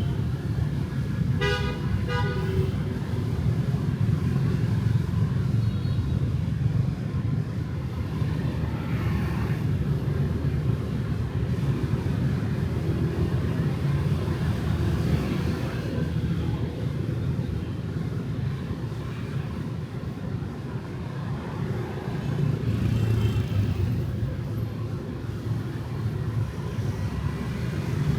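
Street traffic of motorbikes and cars with a steady low engine and tyre rumble. A vehicle horn toots briefly about two seconds in.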